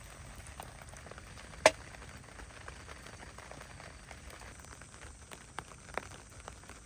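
Campfire of soaked firewood hissing and crackling, with one sharp pop nearly two seconds in and two smaller pops near the end.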